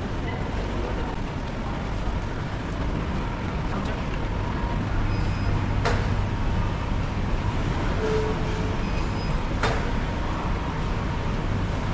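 Busy bus-terminal ambience: a steady low rumble of bus engines and traffic with faint background voices, and two sharp clicks, one about halfway through and one near the end.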